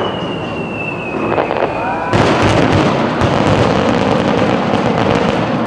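Fireworks: a whistle that slides slightly down in pitch, then about two seconds in a sudden loud burst followed by continuous crackling and popping.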